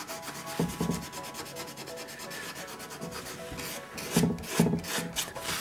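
Sandpaper rubbed by hand over carved wood: short back-and-forth scratching strokes, growing louder and sharper in the last second and a half.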